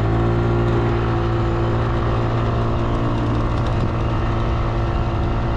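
Peugeot Speedfight 4 125 scooter's single-cylinder four-stroke engine running at a steady cruising speed while riding, with wind and road noise.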